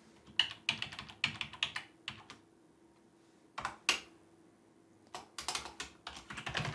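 Typing on a computer keyboard: quick runs of keystrokes, a pause of about a second and a half near the middle, then a few single keys and another run of typing.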